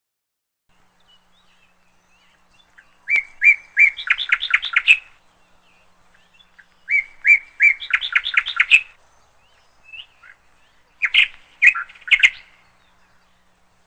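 Pet parrot calling: two similar series of sharp chirps, each a few separate notes breaking into a quick run, then a shorter burst of calls near the end.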